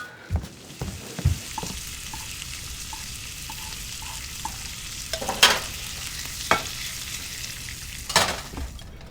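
Food frying in a hot pan on a stove, a steady sizzle. A few knocks near the start and three sharp clinks or scrapes in the second half, from a utensil against the pan.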